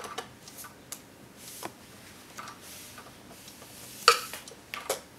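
Screwdriver undoing the screws that hold a plastic cuckoo-clock movement in its wooden case: irregular small clicks and scrapes, with two sharper clicks about four and five seconds in.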